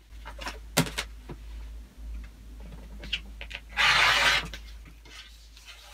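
Acrylic quilting ruler set down with a few light knocks on a cutting mat, then a rotary cutter run through a terry-cloth hand towel, a short rasp of about half a second just under four seconds in.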